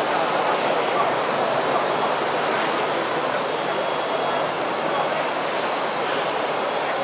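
Steady, even din of a busy exhibition hall, with crowd chatter mixed into the background and no single event standing out.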